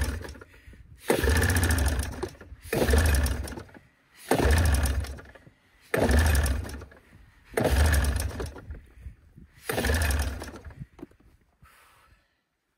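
Recoil pull starter on a 1987 Arctic Cat Cougar 500's Suzuki two-cylinder two-stroke engine being yanked over and over, about seven pulls roughly a second and a half apart, the engine cranking briefly each time without catching.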